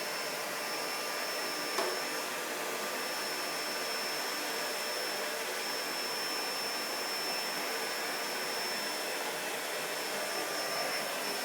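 Vacuum cleaner running steadily, an even rushing noise with a thin high whine over it, and one light knock about two seconds in.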